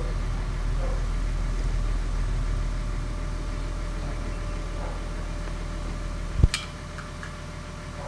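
Volvo EC210CL excavator's diesel engine running steadily, with a single sharp click about six and a half seconds in, after which the low rumble is fainter.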